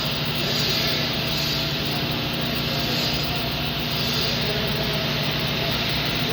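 TIG welding: a steady machine hum with a constant hiss over it, from the welder and the arc.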